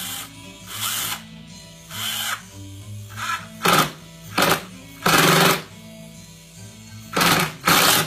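Power drill running in a series of short bursts, about eight of them, the longest about half a second, over background music.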